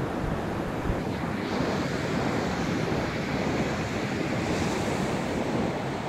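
Surf washing on a sandy beach, a steady hiss of breaking waves, with wind buffeting the microphone.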